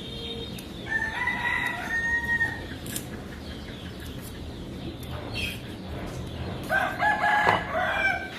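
A rooster crowing twice, each crow long and drawn out, about five seconds apart.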